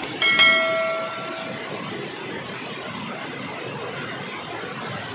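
A sharp click, then a bright bell-like chime that rings once and fades over about a second and a half: a subscribe-button animation sound effect. Underneath, the steady rush of a waterfall's water over rocks.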